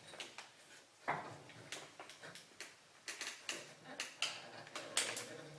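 Irregular light clicks and taps of hand tools and metal parts while a pulley and drive belt are being set and lined up on a slab saw: one click about a second in, then a cluster of them past the middle.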